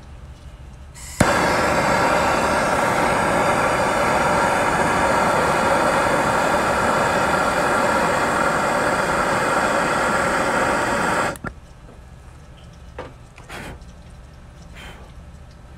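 MAPP gas torch burning with a steady, loud hiss as it heats an aluminum condenser coil joint to braze a refrigerant leak. It lights with a sharp click about a second in and cuts off abruptly about ten seconds later, followed by a few faint knocks.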